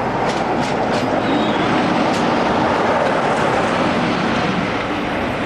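British Rail Class 47 diesel locomotive and its coaches passing close by: its Sulzer twelve-cylinder engine running, with a few sharp clicks of wheels over rail joints in the first couple of seconds.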